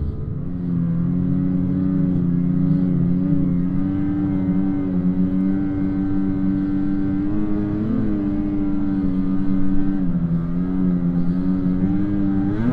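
Snowmobile engine running at a steady, fairly even speed while riding, with a brief wobble in pitch about eight seconds in and a slight drop around ten seconds.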